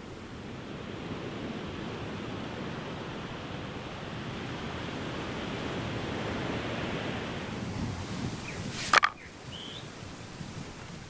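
Steady rush of sea surf, broken off about nine seconds in by a single sharp knock, the loudest sound. After it comes quieter open-air ambience with one short high chirp.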